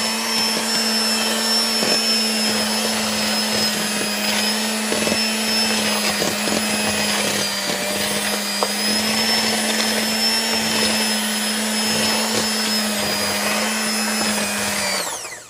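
Electric hand mixer running steadily at one speed, its beaters working a thick, crumbly almond-flour dough in a plastic bowl, with a few light clicks. Near the end the motor is switched off and winds down.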